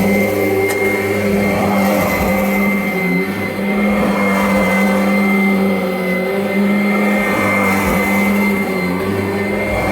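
Kirby Avalir upright vacuum cleaner running: a steady motor drone with a thin high whine over it, wavering slightly now and then.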